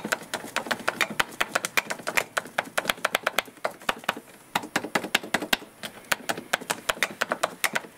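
Fingers typing on the keys of a Texas Instruments TI-99/4A computer keyboard: an uneven, quick run of key clicks, several a second.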